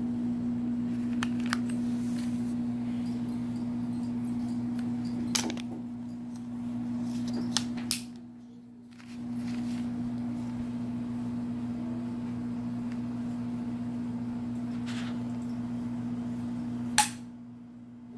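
Sharp metallic clicks from a handgun being handled, a few separate ones with a close pair in the middle and the loudest near the end, over a steady low hum.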